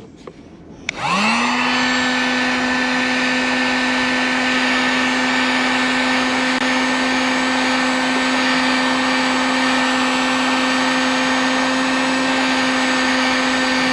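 Harbor Freight heat gun switched on about a second in, its fan motor spinning up and then running at a steady whine over a rush of blown air, heating plastic for a weld.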